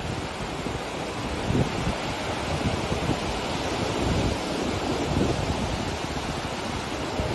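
Ocean surf breaking on a beach, a steady wash of noise, with wind buffeting the microphone in uneven low gusts.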